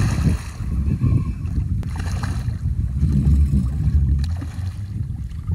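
Wind buffeting a phone microphone in an uneven low rumble, heaviest about three seconds in, with light water sloshing and splashing around a small skiff.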